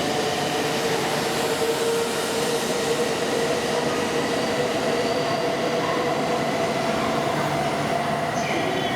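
E2 series Shinkansen train running at the platform, a steady rumble and rush of noise with a motor whine that rises slightly in pitch.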